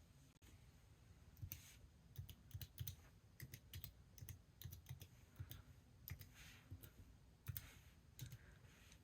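Faint typing on a computer keyboard: irregular, quick key clicks that start about a second and a half in, entering a Wi-Fi password during setup.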